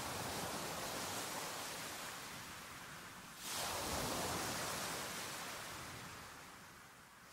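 Ocean waves washing ashore, quietly: one wash of surf fades away, then a new wave surges in about three and a half seconds in and slowly recedes.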